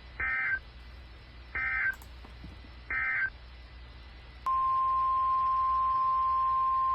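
Emergency Alert System SAME data bursts: three short bursts of warbling digital tones about a second and a half apart, the end-of-message code closing a warning. About four and a half seconds in, the steady 1050 Hz NOAA Weather Radio alert tone starts and holds.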